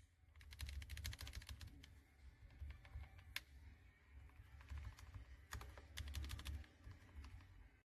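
Typing on a mechanical keyboard with Gateron Ink Black v2 linear switches, giving rapid runs of keystrokes. Runs come about half a second in and again around five and a half seconds in, with softer scattered strokes between and one sharper single keystroke near the middle.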